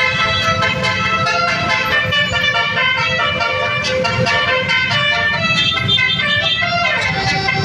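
Bus's Basuri-type 'telolet' musical horn playing a tune of changing multi-tone notes, with a steady low rumble underneath.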